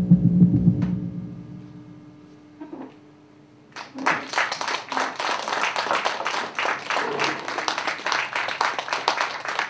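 Sustained low musical tones fade away over the first couple of seconds. After a short lull, audience applause breaks out about four seconds in and keeps going.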